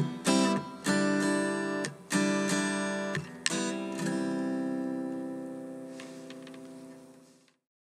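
Steel-string acoustic guitar strummed, with a few chords in quick succession. A final chord is struck about three and a half seconds in and left to ring out, slowly fading, until it cuts off suddenly near the end.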